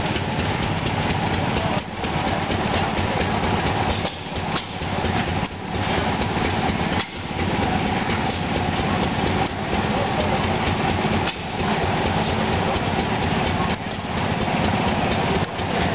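Antique cylinder washing machine running, its slatted wooden drum turning inside the galvanised tub with a steady mechanical clatter that breaks off briefly about every two seconds.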